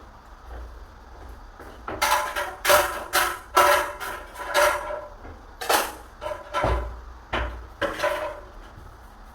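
A run of about ten sharp knocks with a slight ring, starting about two seconds in and ending near the end: tool strokes from door repair work.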